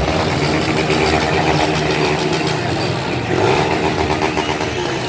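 A vehicle engine running loudly, its pitch swinging up and down about three and a half seconds in.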